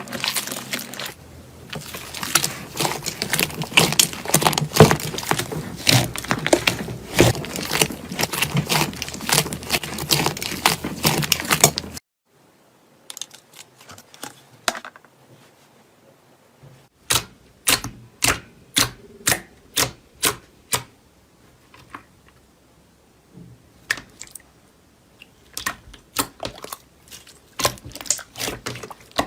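Slime being pressed and squeezed by hand: a dense run of crackling clicks and pops. About halfway through it cuts to quieter handling with sharp single clicks, about two a second, and more clicking near the end.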